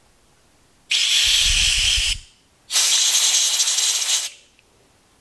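Compressed-air blow gun fired through the drain passage of a coffee carafe lid in two blasts of hissing air, each about a second and a half long, the first with a low rumble under it. The air is clearing caked coffee powder out of the clogged passage.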